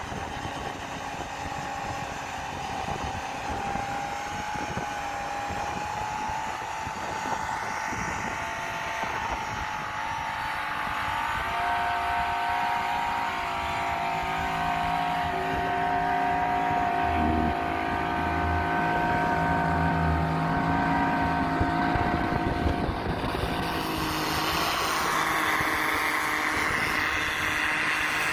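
Suzuki V6 off-road 4x4's engine running hard at high revs as it churns its mud tyres through deep snow. The engine note holds steady, steps up in pitch and gets louder about halfway through, with a rush of snow and wind noise near the end.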